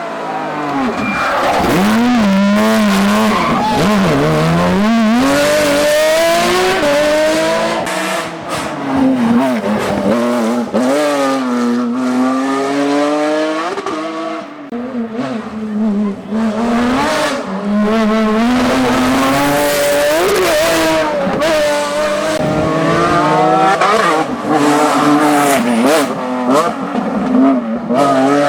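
Porsche 911 GT3 rally car's flat-six engine at full rally pace, revving hard with the pitch climbing and dropping over and over as it changes gear and brakes for corners.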